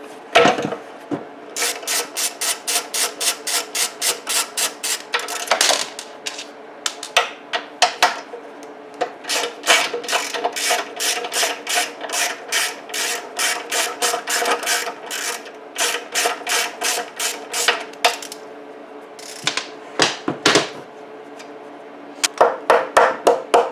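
A hand ratchet clicking in steady runs of about three clicks a second as 10 mm valve-cover bolts on a small engine are backed out, with short pauses between runs.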